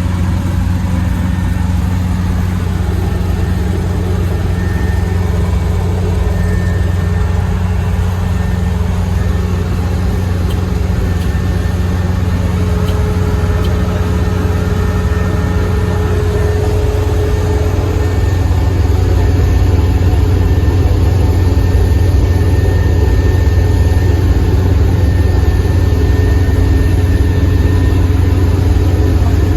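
Rice combine harvester's engine running steadily, a loud low drone that grows a little louder about two-thirds of the way in.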